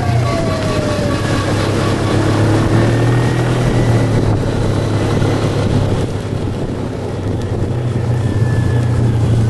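Engines of a column of vintage scooters riding along the road, a steady low drone with road and wind noise over it.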